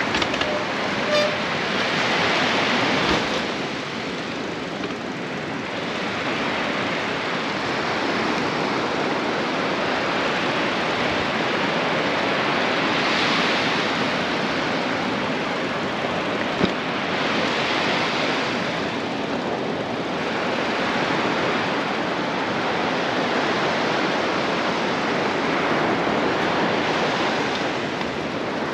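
Surf breaking on a sandy beach: a steady rushing noise that swells several times, with one sharp click about two-thirds of the way through.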